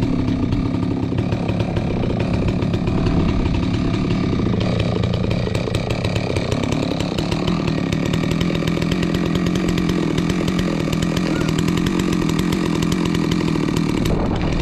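Two-stroke chainsaw running at high revs, cutting through a log; the pitch dips under load for a few seconds midway and then steadies.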